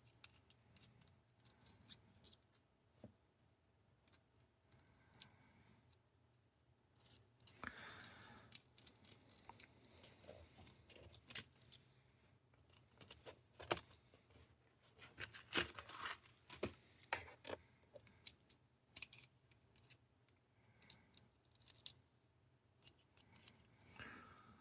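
Faint, scattered clicks and small metallic scrapes of a screwdriver working screws out of a laptop's plastic bottom case, busiest in two spells around the middle.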